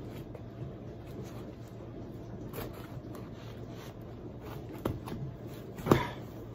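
Scissors scraping and cutting through packing tape on a cardboard box, over a low steady hum, with a sharp snap near the end.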